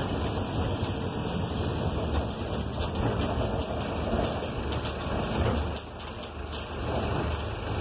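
City bus running along a street, heard from inside the cabin near the driver: steady engine drone and road noise.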